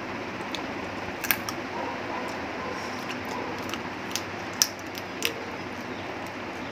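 Close-up eating sounds: a few sharp clicks and crunches as she bites and chews a chicken leg piece, the loudest a little past the middle, over a steady background hiss.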